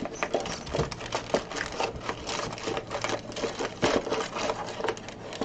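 Foil energy-drink sample sachets being shaken and rummaged through inside a cardboard box: a quick, irregular run of clicks and crinkly rustles.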